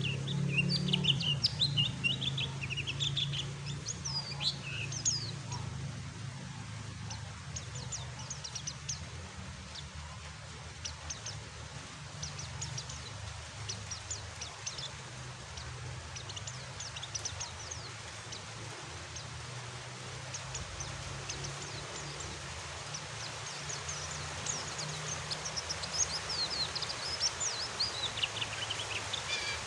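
Oriental white-eye (pleci) twittering in quick, high, sweeping chirps, busiest near the start and again near the end, over a steady hiss of rain and a low hum.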